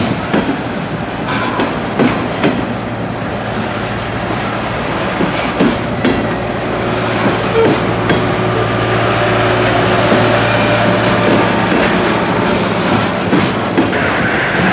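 Train rolling past, its wheels clicking over the rail joints in an irregular clickety-clack, with a steady low hum through the middle of the passage.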